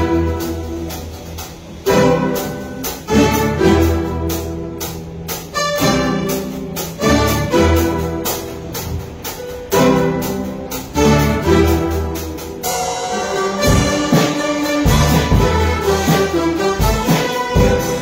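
Rondalla ensemble of bandurrias, guitars and a double bass playing an arrangement of a pop ballad: plucked and strummed chords with sharp attacks over a steady bass line.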